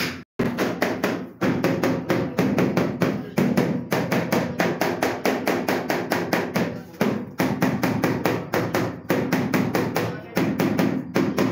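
Rubber-headed mallet tapping rapidly on a large ceramic wall tile, several blows a second with a couple of short pauses, bedding the tile into its adhesive.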